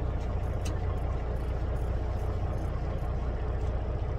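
Fishing boat's engine idling, a steady low hum.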